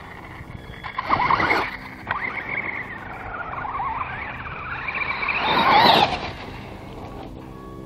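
RC truggy's Castle 3800 brushless electric motor whining, its pitch rising and falling with the throttle, and tires crunching and spraying gravel. There are two loud close passes, about a second in and near six seconds, the second the loudest.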